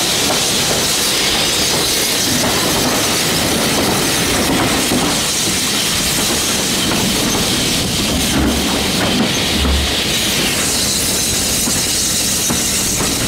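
Train coaches running on the rails, heard from a carriage window: steady wheel and rail noise with a clickety-clack over the rail joints.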